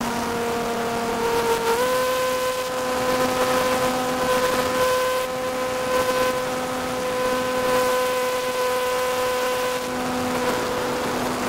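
The engine of the camera-carrying aircraft running at a steady high drone. Its pitch steps up slightly about two seconds in and then holds, under a steady hiss.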